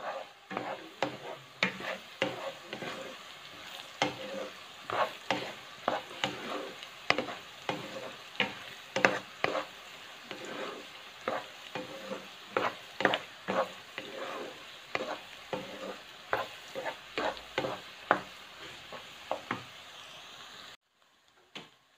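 Strips of tempe deep-frying in a wok of hot oil: a steady sizzle and crackle, with a spatula stirring through them and knocking and scraping against the pan in frequent sharp clicks. The sound cuts off suddenly about a second before the end.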